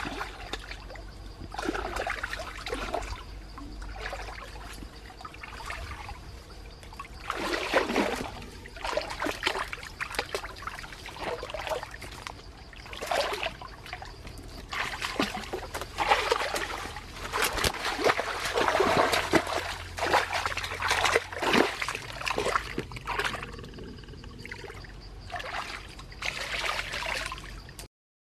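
Shallow water splashing and sloshing in irregular bursts as a person wades and gropes in it with her hands for fish. The splashing is busiest in the middle of the stretch.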